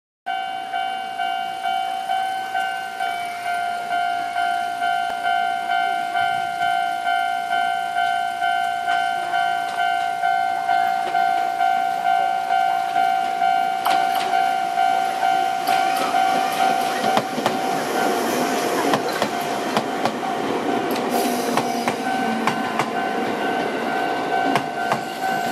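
A level-crossing alarm rings in a steady repeating electronic tone, about once a second. From about halfway through, a Chichibu Railway 6000-series electric train (ex-Seibu New 101 series) approaches and passes over the crossing. Its running noise and wheel clatter grow loudest near the end while the alarm keeps ringing.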